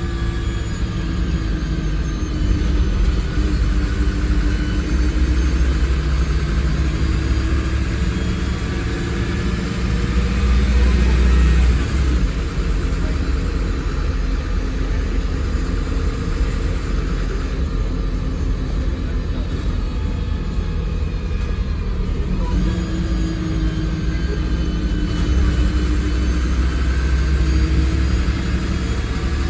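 Interior of a 2009 MAN 16.240 city bus under way, heard from the rear seats: the rear-mounted diesel engine and Voith automatic gearbox under a heavy low rumble. The engine note rises and falls, loudest about ten to twelve seconds in and again near the end.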